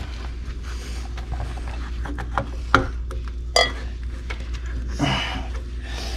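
Intercooler pipes and rubber couplers being handled and pushed into place: rubbing and scraping, with two sharp knocks about a second apart midway and a brief rustle near the end.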